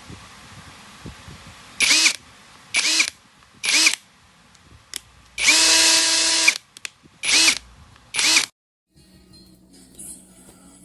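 SILVEL cordless brushless 1/2-inch impact wrench triggered in short bursts: five quick pulls and one longer run of about a second in the middle, its motor whine rising as it spins up and falling as it stops.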